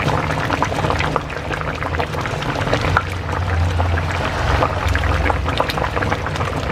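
Food cooking in a pan on the stove: a steady crackling and bubbling, with a low hum underneath.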